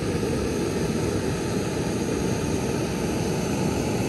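Backpacking canister stove burning under a cook pot: the steady roaring hiss of the gas flame.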